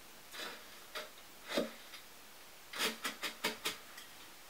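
A metal fork scraping and tapping in a bowl of crushed pretzel crumbs while chicken pieces are coated. There are three separate scrapes, then a quick run of about five clicks near the end.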